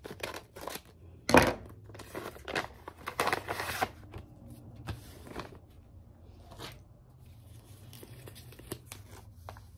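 A mail package being torn open and its paper and plastic wrapping crinkled by hand, in irregular rips and rustles. The loudest rip comes about one and a half seconds in, and the rustling thins out after about four seconds.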